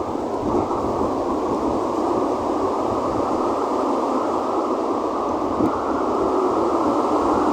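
Strong wind blowing, a steady rushing noise that slowly grows a little louder.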